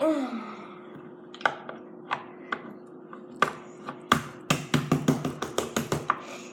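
Slime being pressed into a small plastic container: scattered sharp taps and clicks, then a quick run of about five clicks a second in the second half, over a faint steady hum.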